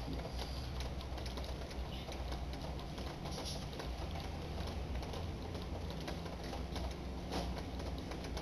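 Soft, irregular little taps and clicks from face paint being dabbed on with a makeup sponge, over a low steady room hum.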